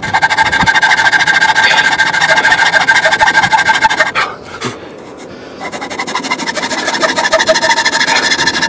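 Hand saw cutting teeth into a small wooden ratchet wheel in quick back-and-forth strokes, the steel blade ringing as it rasps. The sawing stops briefly a little after four seconds, with one click, then starts again.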